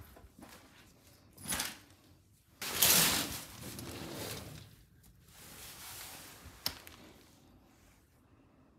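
Hotel room curtains being pulled open along their ceiling track, a rushing slide of about two seconds that starts sharply, with a shorter slide or rustle before it and a sharp click later.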